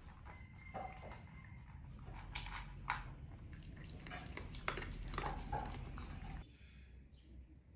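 A corgi eating dry kibble from a bowl: irregular crunching, licking and clicks of kibble against the bowl. It stops abruptly about six seconds in.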